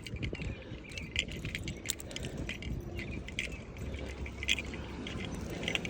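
Light, irregular metallic jingling and rattling, as of a dog's collar tags and leash hardware while the dog is walked, over a low steady rumble.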